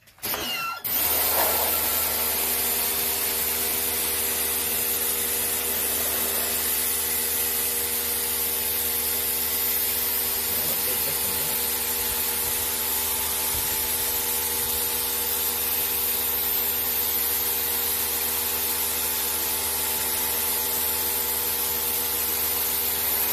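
Pressure washer running, its jet spraying onto concrete paving slabs: a steady hiss over the machine's even hum. It comes on within the first second and then holds level.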